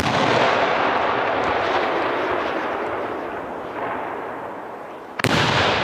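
A Del Vicario 16-inch aerial firework shell fired from its mortar with a loud boom, followed by a long noisy echo that slowly fades. About five seconds in the shell bursts with a second loud bang.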